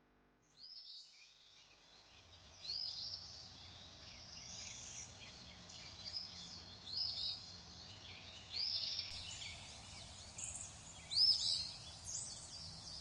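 Oriental magpie robin singing a string of varied, sweet whistled phrases made of short arching notes, over a faint steady hiss of outdoor background.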